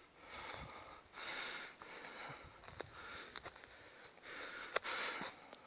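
A walker's heavy breathing close to the microphone, a breath about every second, with a few light clicks in between.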